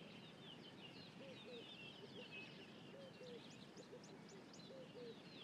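Faint wild birdsong: scattered high chirps and trills, with a lower two-note call repeated about three times.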